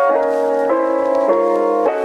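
Background music: sustained chords that change about every half second.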